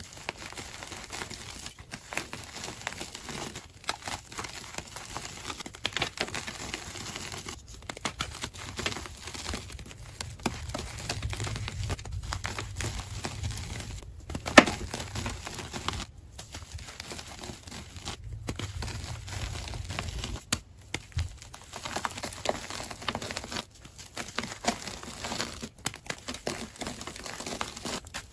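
A hand squeezing and crushing a lump of gym chalk: dense crunching and crumbling as the chalk breaks apart and the powder falls. The sound stops briefly every few seconds between squeezes, and there is one sharp crack about halfway through.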